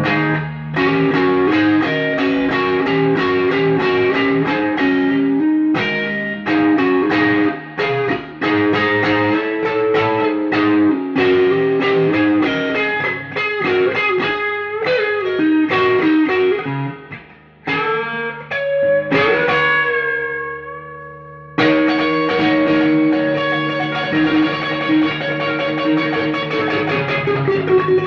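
Fender Stratocaster electric guitar played clean through Fender DeVille and Blues Junior amps with reverb: a run of picked notes and chords, then a note bent upward and left to ring and fade, followed by full chords struck again.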